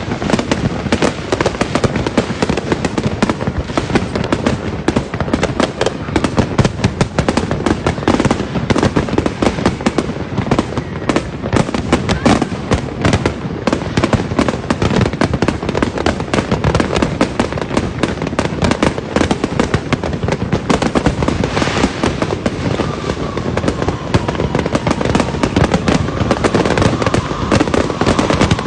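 Fireworks and firecrackers going off in a continuous barrage: dense, rapid popping and crackling with no let-up. A faint falling whistle is heard near the end.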